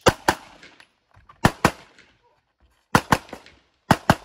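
Handgun fired rapidly in pairs: about four quick double shots spaced roughly a second and a half apart, each shot followed by a short echo.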